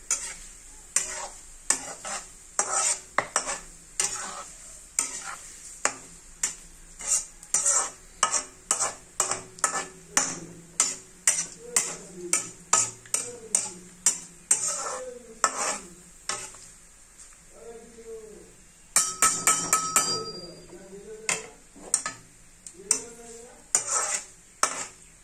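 Metal spatula scraping and clinking against a kadai while stirring shredded potato frying in hot oil, about two strokes a second, with a quick flurry of strokes about three-quarters of the way in. A steady oil sizzle runs underneath.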